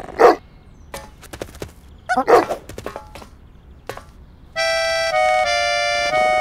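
Cartoon sound effects: two short thumps and a few light clicks, then in the last two seconds a held accordion-like chord that shifts pitch a few times.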